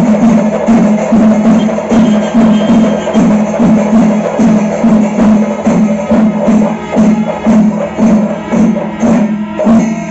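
Kerala temple drum ensemble playing a steady beat of about three strokes a second, with a metallic jingle above the drums.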